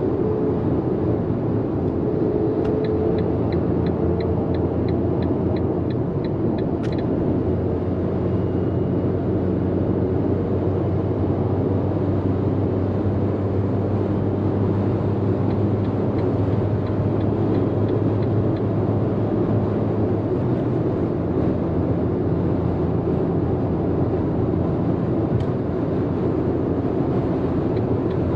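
Inside the cabin of a Fiat Panda with a naturally aspirated 1.0 three-cylinder mild-hybrid petrol engine: steady road and engine noise while driving. A few seconds in, the turn-signal indicator ticks about three times a second for roughly four seconds and ends with a click.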